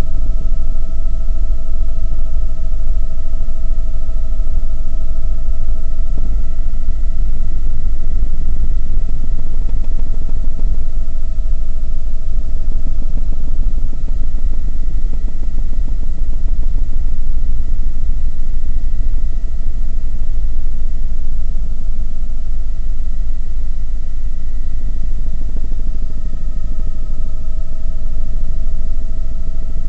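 Helicopter in flight heard from inside the cabin: a loud, steady low rumble of rotor and engine with a steady high whine above it.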